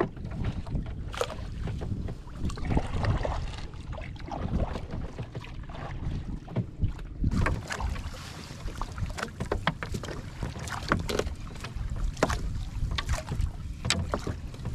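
Fishing net being paid out over the gunwale of a small wooden outrigger canoe: many short knocks and clicks as the mesh and its floats drag across the hull, over water lapping and a steady rumble of wind on the microphone. The net is being set to be left in the water and hauled the next day.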